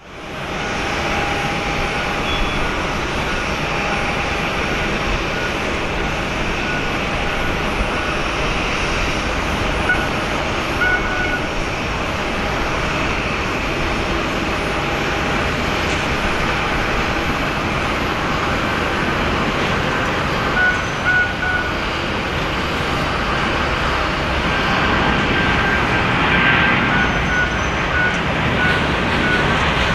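Airbus A340-600's jet engines running with a steady rushing noise that grows slightly louder in the last third. A faint beeping repeats about once a second in the later part.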